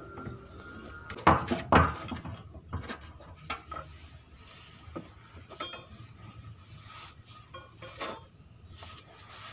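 Scattered metallic clicks and clinks from a small flat-blade screwdriver working the fuel-hose clamp on a car's fuel filter, with two louder knocks close together about a second and a half in.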